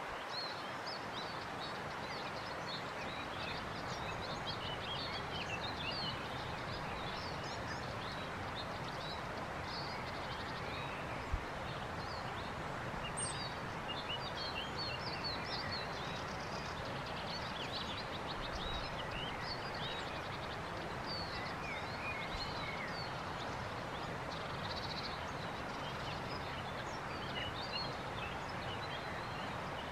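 Outdoor ambience of many small birds singing and chirping over a steady background hiss, with a single sharp tick about eleven seconds in.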